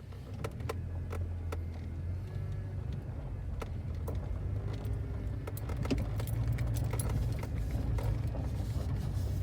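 A car driving slowly, with a steady low rumble of engine and road and scattered light clicks and rattles.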